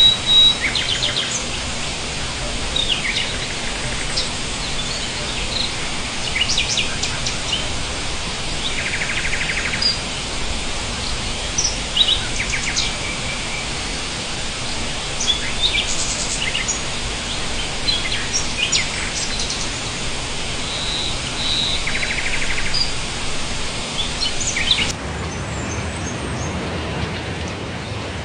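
Several birds chirping and trilling in short calls over a steady background hiss; near the end the background hiss changes suddenly.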